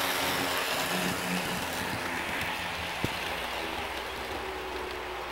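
HO scale model train running past close by, its wheels rolling on the track and motor running in a steady rush that fades as it moves away. One sharp click about three seconds in.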